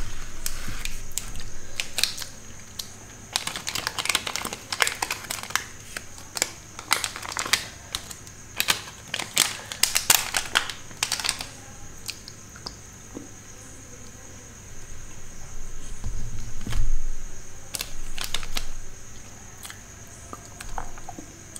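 Plastic wrapper of a Cadbury Dairy Milk chocolate bar crinkling and tearing as it is opened by hand: a dense run of sharp crackles for the first dozen seconds, then a few scattered ones later. There is a dull bump about sixteen seconds in.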